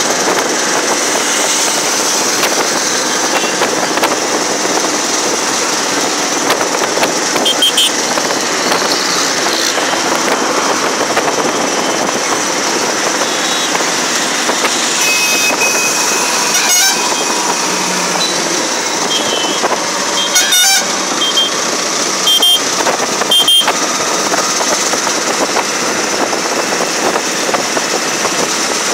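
Auto-rickshaw running at speed on an open road: a steady mix of engine and wind noise from inside the open cab, with a few short horn beeps, most of them in the second half.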